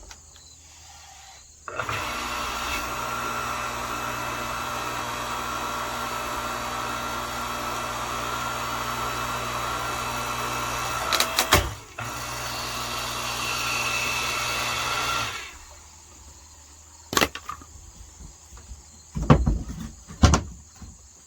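Earthquake 5-ton electric log splitter's motor and hydraulic pump running steadily for about ten seconds, with a few sharp cracks about midway, then running a few seconds more before shutting off. A few knocks of wood follow near the end.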